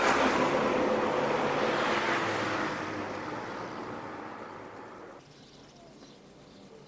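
Road traffic: a vehicle rushing past close at the start, its noise fading away over the next few seconds, then cutting off abruptly about five seconds in.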